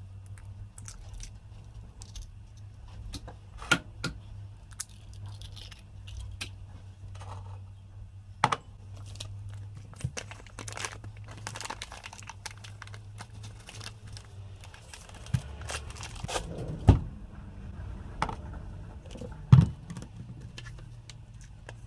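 Kitchen prep handling: eggs knocked and cracked into a ceramic bowl, a plastic seasoning bag crinkling, and items set down on a stainless-steel counter, giving a string of sharp knocks and clicks. A low steady hum runs underneath.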